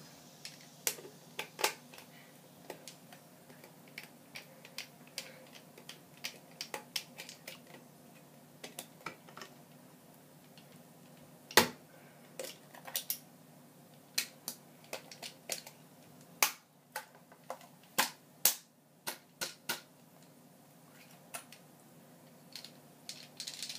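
Irregular sharp clicks and snaps of a plastic Nerf Elite toy walkie-talkie being handled and having its removable parts pried off, with one louder snap about halfway through.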